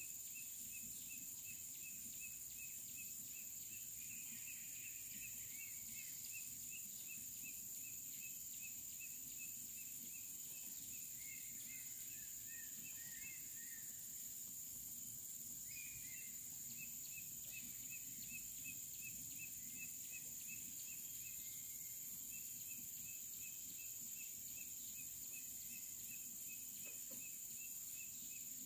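Outdoor insect chorus: a steady high-pitched buzz of insects with a quick repeated chirping, about three or four chirps a second, that pauses now and then. A few short bird notes come in about halfway through.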